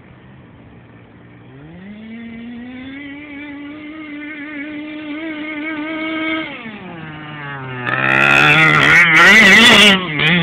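FG monster truck's 26cc two-stroke engine with a homemade tuned pipe. It idles, revs up and holds a steady high note for several seconds, then drops back. About eight seconds in it revs hard and much louder, its pitch wavering, as the truck passes close.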